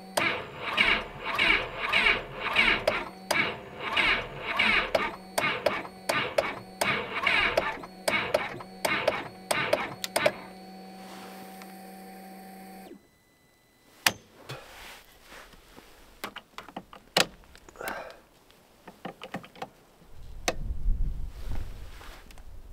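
The electric starter of a Ski-Doo Expedition snowmobile's Rotax engine is cranking it in deep cold. The engine turns over slowly and laboriously, about two heavy beats a second, without catching. This is a frozen engine that won't start. A steady hum runs for about two seconds and cuts off suddenly, then come scattered clicks and knocks and a low rumble near the end.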